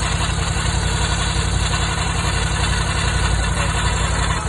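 Ducati Scrambler 1100 Pro's air-cooled L-twin engine idling steadily, with a strange grinding noise that the owner cannot identify.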